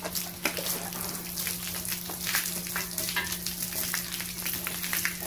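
Water spraying from a hose onto and into the cast-iron block of a 7.3 Powerstroke diesel, a steady hiss broken by irregular splashes as the block is rinsed. A steady low hum runs beneath it.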